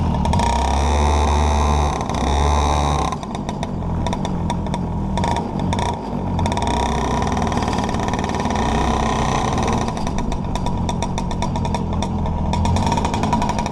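Kart engine heard from on board, running hard for about three seconds. The throttle then shuts and the engine runs on at low revs as the kart slows, turning into an uneven crackling near the end.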